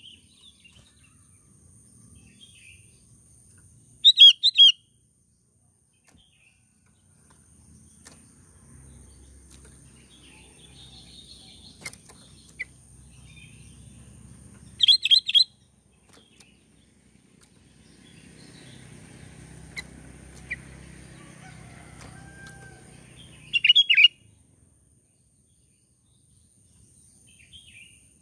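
Sooty-headed bulbul calling: three short phrases of a few quick whistled notes each, about ten seconds apart.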